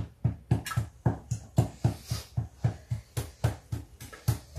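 Steady rhythmic knocking, about four dull thumps a second.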